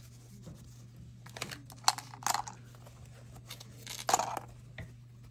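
Hands rustling a cloth drawstring bag and handling small plastic tool packets taken out of it, in a few short bursts about two seconds and four seconds in. A steady low hum runs underneath.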